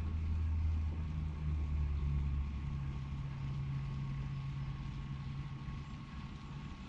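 Low, steady engine drone. A deep part of the hum fades about halfway through, leaving a slightly higher steady tone that dies away near the end.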